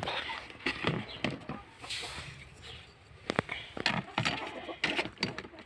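Hens clucking in a coop, with scattered sharp knocks and rustling from straw and egg handling.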